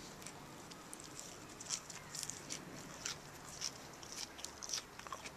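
Faint, irregular soft clicks and wet smacks of a mouth chewing nasturtium flowers close to the microphone.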